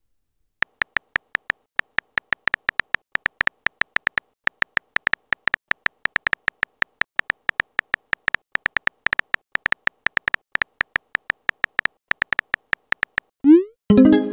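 Fast, uneven keyboard tap clicks from a texting app as a message is typed letter by letter. Each click is a short, high blip. Near the end comes a short rising blip and a brief chime as the message is sent.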